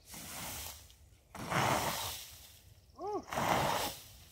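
A rake dragged through dry pine straw in three separate scraping strokes, with a short grunt-like voice sound about three seconds in.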